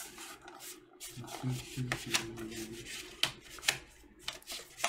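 A vinyl record's paper inner sleeve being handled: the paper rustles and scrapes, with a run of short, sharp swishes in the second half.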